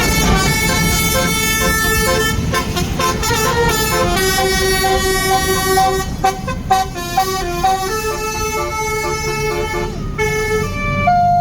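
Tour bus 'telolet' multi-tone air horn playing a tune of held, stepped notes, over the low running of the bus engine.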